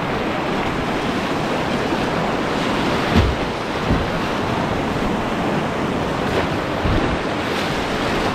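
Whitewater rapids rushing steadily around a kayak running them, with a few short low thumps, the loudest about three and four seconds in.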